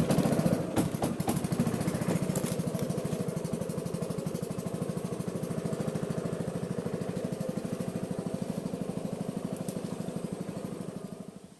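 Small single-cylinder boat engine running with a steady, rapid putter, fading out near the end.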